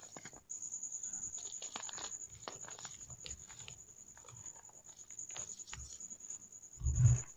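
Plain Jane gym chalk balls being crushed by hand: irregular crunches and crackles, with a louder dull thump just before the end.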